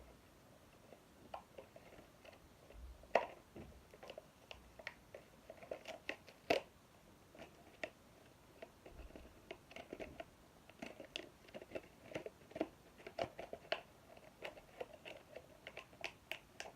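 Plastic and cardboard packaging being handled as a toy model is unboxed: irregular faint crinkles and sharp clicks, with two louder snaps about three and six and a half seconds in.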